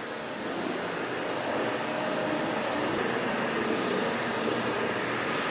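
Vacuum cleaner running steadily, a constant whooshing hiss.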